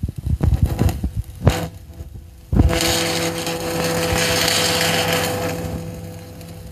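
Welding arc striking about two and a half seconds in and then hissing steadily over the hum of the welding power sources, fading near the end. Before it come a few dull knocks.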